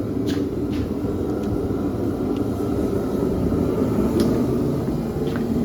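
Steady low rumble of a forced-air shop heater running, with a few faint light clicks over it.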